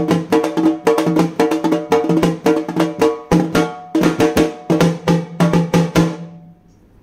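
Halgi, a Maharashtrian frame drum, beaten in a fast, driving rhythm with a ringing, pitched skin tone. The strokes stop about six seconds in and the ring dies away.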